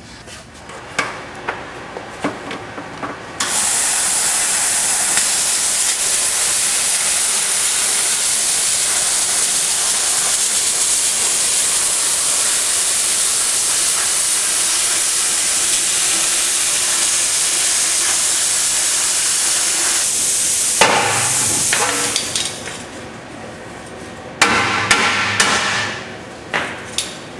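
Plasma cutter cutting out a car's shock tower: a loud, steady hiss that starts a few seconds in and stops after about seventeen seconds, followed by a shorter burst near the end.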